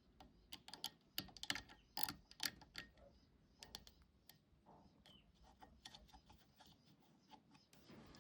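Light clicks and knocks of hand work, many in quick succession in the first three seconds, then scattered and fainter.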